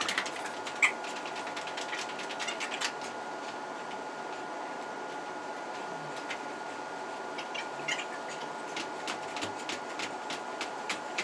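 Feet landing on a rubber gym floor during jumping jacks and squat jumps: scattered light thuds and taps in the first few seconds, a pause, then again near the end. A steady hum with a faint high tone underlies it.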